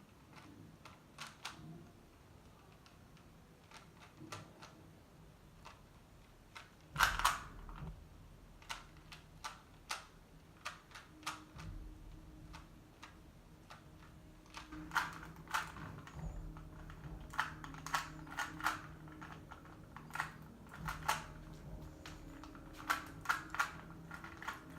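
3x3 Rubik's cube being turned by hand, its plastic layers clacking in irregular runs of quick clicks, with a louder flurry about seven seconds in.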